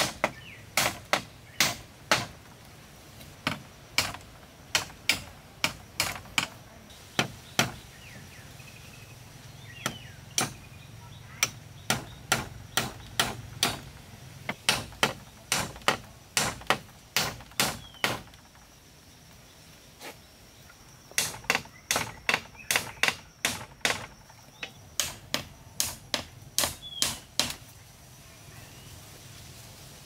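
A hatchet striking the wooden poles of a shelter roof's edge, sharp wooden knocks about two or three a second in three runs with short pauses between, as the pole ends are trimmed.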